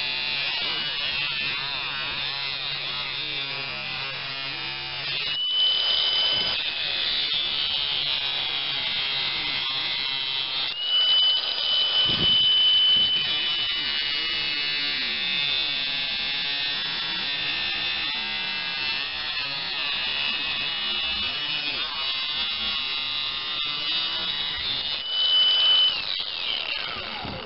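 Angle grinder running continuously, grinding the protruding end of an oil-impregnated bronze sleeve bushing down flush on a steel mower-deck idler pulley bracket. The motor's whine rises in pitch a few times as the disc comes off the metal, and falls as it spins down near the end.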